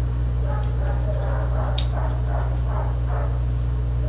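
A steady low hum, with faint, indistinct voice-like sounds over the first three seconds or so and a small click a little under two seconds in.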